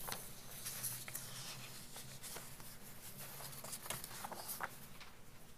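Papers being handled at a podium microphone: light rustling and small taps and clicks, over a steady low hum.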